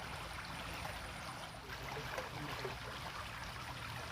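Water running steadily in a small ditch, a continuous trickling rush.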